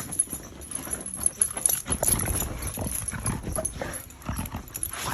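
A dog moving about, with scattered knocks and clicks and a few brief short cries.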